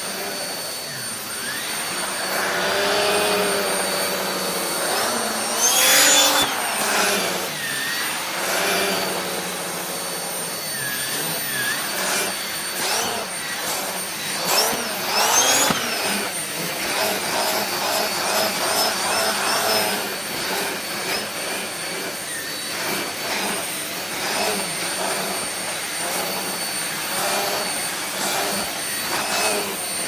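Vacuum cleaner running continuously with a hissing rush of air. Its motor whine wavers up and down in pitch, with louder surges about six and fifteen seconds in.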